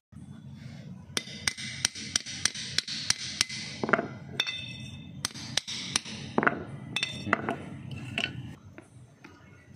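Sharp metal taps and clinks from a drum brake shoe and its small steel fittings being worked on a concrete floor: a quick run of taps in the first few seconds, then scattered knocks, some of them ringing briefly.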